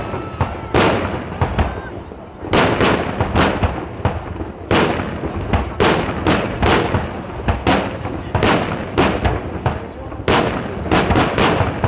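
Fireworks display: aerial shells bursting in quick succession, about twenty loud bangs in twelve seconds, several coming in rapid clusters, with continuous crackling between them.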